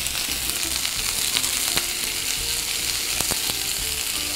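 Sticks of cucumber and yamaimo sizzling in hot oil in a frying pan over high heat while long chopsticks stir them. A steady, dense hiss carries a few sharp clicks.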